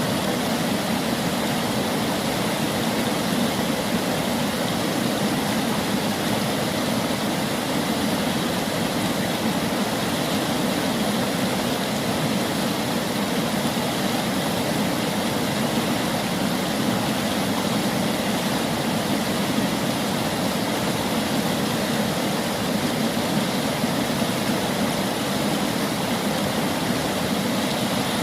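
River water flowing, a steady, even rushing with no pauses.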